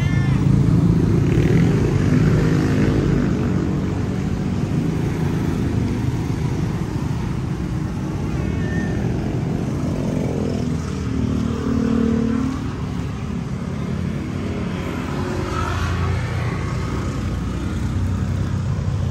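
Street traffic: a steady low rumble of passing motor vehicles, with one engine note swelling more loudly about ten to twelve seconds in.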